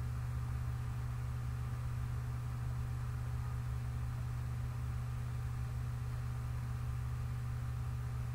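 Steady low electrical hum with faint hiss: the recording's background noise. It is unchanging, with no other sound.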